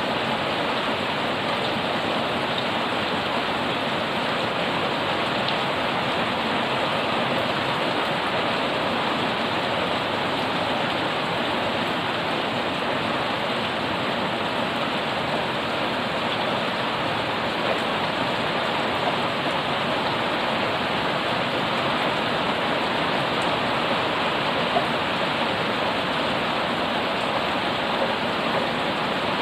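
Heavy rain pouring steadily onto a wet paved yard, puddles and the leaves of potted garden plants: a dense, even rush of water. A few sharper drops stand out now and then in the second half.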